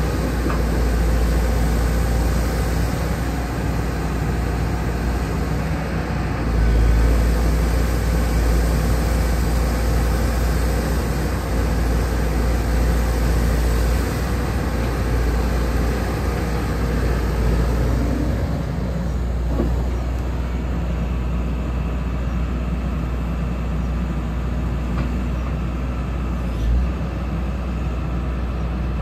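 Hyundai R170W-7A wheeled excavator's diesel engine running steadily with a low rumble while the hydraulics work the boom and swing the upper structure. A short thump near the end.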